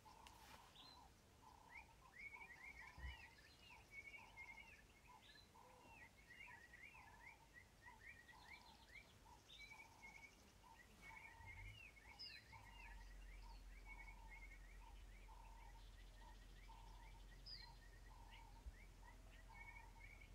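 Faint outdoor birdsong from several birds: a short note repeated about once a second under quick, hooked high chirps. A low steady hum comes in about two-thirds of the way through.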